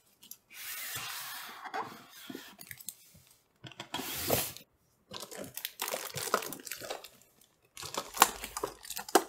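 Packaging rustling and crinkling as an all-in-one liquid cooler is unpacked from its box: a sliding rustle about half a second in, then scattered crinkles and a few sharp clicks near the end.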